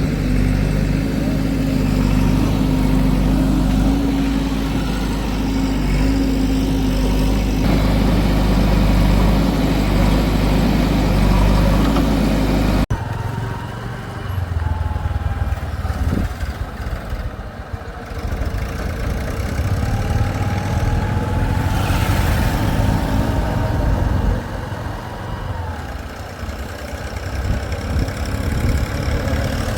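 Diesel engines of an earthmoving backhoe and tractors running steadily for about 13 seconds. Then an abrupt change to an uneven engine sound with faint whines gliding up and down.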